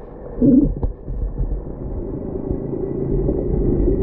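Muffled, steady low rumble of water heard by a camera under the surface, with a brief louder burble about half a second in.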